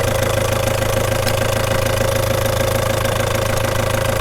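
Ford Transit van's engine idling steadily, just after being jump-started from a flat battery.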